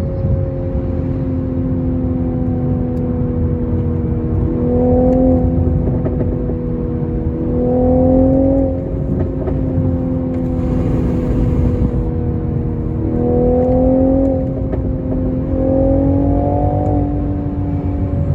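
2022 Toyota GR Supra's engine and exhaust running at steady cruising revs over a low road rumble, the engine note rising briefly and growing louder four times.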